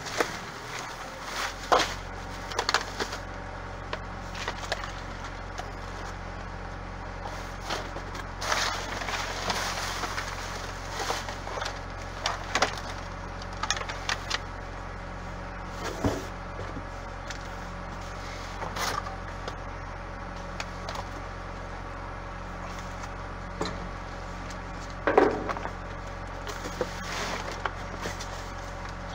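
Plastic bags and cardboard boxes rustling and crinkling, with scattered knocks, as dumpster contents are rummaged through by hand, over a steady low hum.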